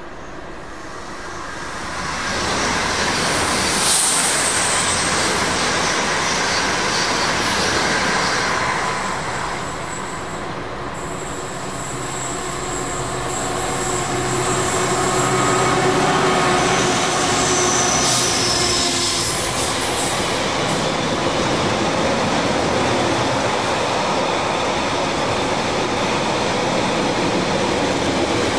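A freight train passing: loud running noise of locomotive and wagons builds about two seconds in and carries on to the end, dipping slightly around the middle. Thin high wheel squeals come through now and then.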